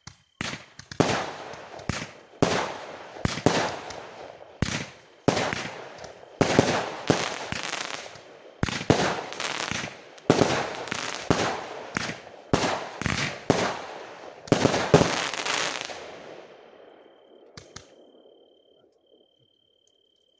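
Fireworks going off in a quick, irregular run of sharp bangs, roughly one to two a second, with the last few the loudest. After that, a rolling echo fades away over a few seconds.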